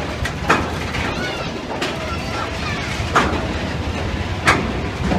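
Thunderbolt steel roller coaster train running along its track overhead: a steady low rumble with a sharp clack about every second and a half.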